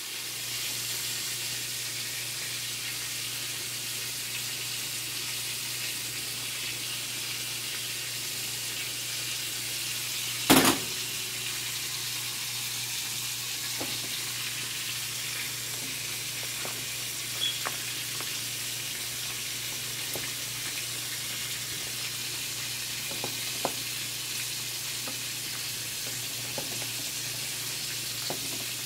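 Shrimp and mussels sizzling steadily in a hot stainless pot, stirred with a wooden spoon that clicks now and then against the shells and pot. One sharp knock about ten seconds in.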